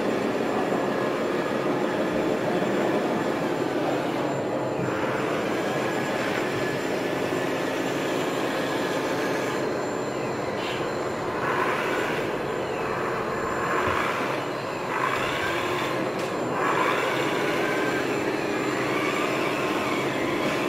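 Radio-controlled model construction machines running: a steady mechanical hum, joined about halfway through by electric-motor whines that rise and fall as a model wheel loader moves and works its bucket.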